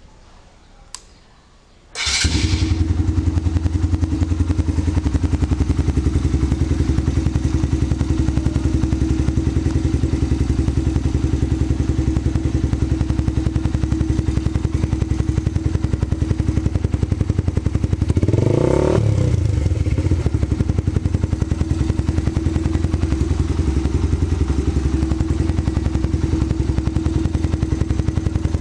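Suzuki Intruder 125 single-cylinder four-stroke motorcycle engine with a Roncar aluminium aftermarket exhaust. After a click about a second in, the engine starts at about two seconds and idles with a steady beat, then revs once briefly around eighteen seconds and drops back to idle.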